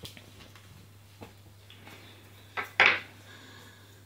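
Faint light scratching and small ticks of a pencil drawing on a workbook page. About three seconds in comes a short, much louder clatter.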